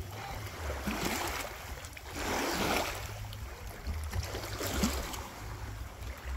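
Wind buffeting the microphone in uneven gusts over a steady rush of water noise that swells and eases.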